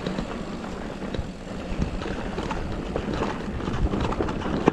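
Mountain bike rolling fast down a rough dirt singletrack: tyre noise on the trail with frequent small knocks and rattles from the bike.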